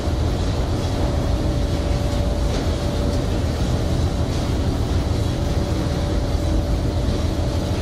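Steady din of fish-processing machinery and conveyors running, with a constant hum running through it.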